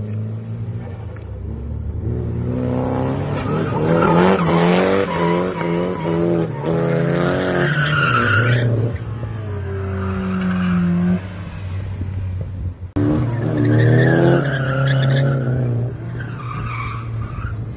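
Nissan 240SX drift car engine revving hard, its pitch rising and falling again and again as the tyres squeal through a drift. The sound breaks off briefly about 13 seconds in, then there is another run with the engine revving and the tyres squealing.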